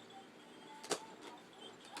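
Cardboard toy packaging being opened by hand, with one sharp snap about a second in.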